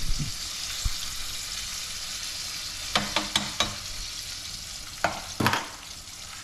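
Cornstarch-coated mahi mahi pieces deep-frying in hot oil: a steady sizzle, broken by a few short knocks about three seconds in and again about five seconds in.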